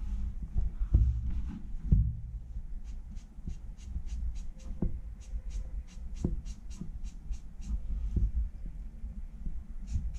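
Micron brush pen stroking on paper while inking hair: a run of short, quick scratches, several a second. Underneath is a low rumble, with a few dull knocks in the first two seconds.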